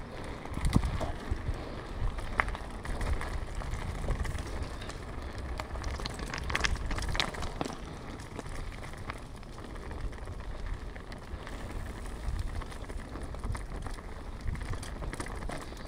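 Mountain bike rolling downhill: steady tyre noise with scattered rattling clicks from the bike, and wind rumbling on the microphone.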